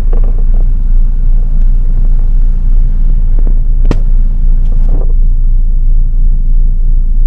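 Steady low rumble of a car heard from inside its cabin while it moves in slow traffic, with one sharp click about four seconds in.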